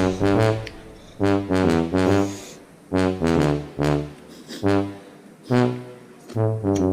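Background music: a brass melody, trombone-like, played in short phrases of a few notes each.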